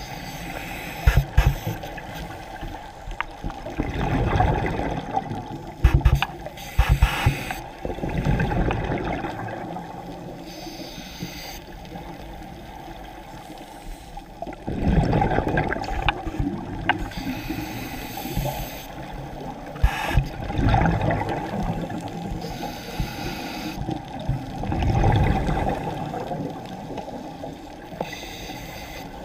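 Scuba regulator breathing heard underwater: a diver's exhaled bubbles gurgling out in several louder swells a few seconds apart, over a steady low water rush. A few sharp clicks come in the first several seconds.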